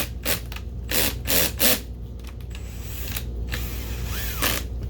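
Cordless drill/driver driving screws, in several short bursts in the first two seconds and a longer run near the end. The clutch is set low (2), so it ratchets and clicks as each screw seats.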